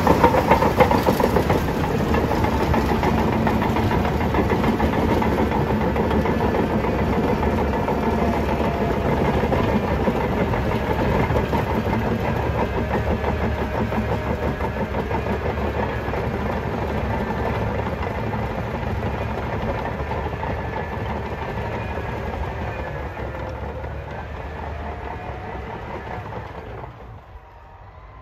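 Bulldozer's diesel engine and steel tracks running close by, a steady heavy mechanical din with faint whining tones that waver in pitch. It grows gradually quieter over the second half and drops off sharply near the end.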